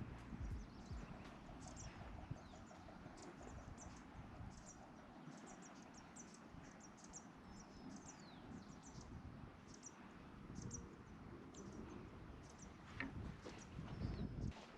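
Faint, high-pitched bird chirps, short and repeated at irregular intervals, with a few falling notes. Underneath is a low rumble that swells near the end.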